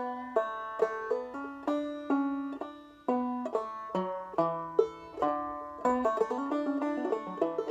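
Five-string banjo played clawhammer style in double D tuning, picking a short ending lick at a moderate pace: a pull-off, a quick triplet of hammer-ons and drop-thumb notes. Each note has a sharp pluck and rings out.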